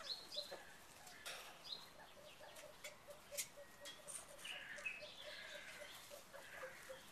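Bantam chickens clucking softly: a fast, even run of low clucks, about four a second, with higher chirps and a few sharp clicks over it.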